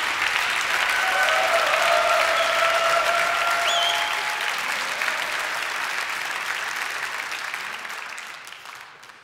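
Audience applauding in a concert hall, calling for an encore; the clapping dies away over the last two seconds or so.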